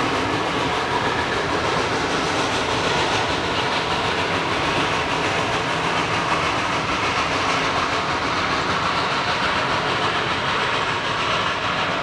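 Steam train of open passenger cars, hauled by a geared logging locomotive, rolling past close by, with a steady noise of wheels on rails and the working train.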